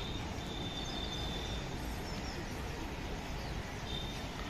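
Steady outdoor background noise by a flooded river, an even rush with no clear single source. A faint thin high tone sounds for about a second near the start and again briefly near the end.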